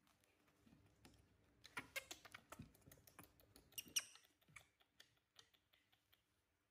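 Faint rustling and sharp little clicks as hands handle a baby monkey and its things, with a cluster of clicks from about two to four seconds in.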